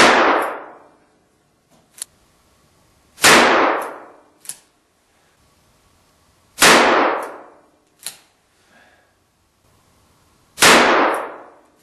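Four shots from a Ruger Single-Six revolver firing .32 H&R Magnum handloads, about three to four seconds apart. Each shot trails off over about a second in the small wooden shooting room. Short sharp clicks come between the shots.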